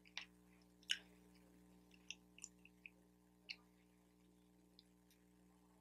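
Drinking from a plastic water bottle: a few faint clicks and crinkles of the bottle and mouth, the sharpest about a second in, over near silence.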